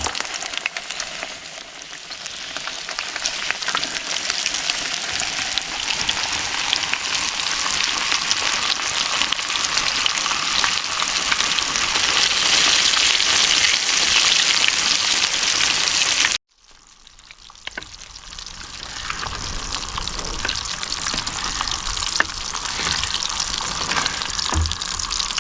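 Fish frying in hot oil: a dense crackling sizzle that grows louder, cuts off abruptly about two-thirds of the way through, then builds up again.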